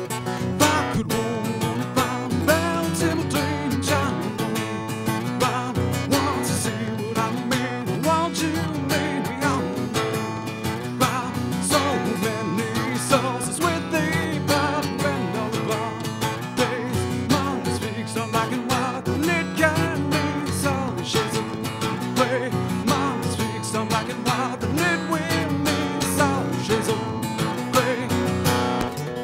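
Live acoustic music led by a steadily strummed acoustic guitar.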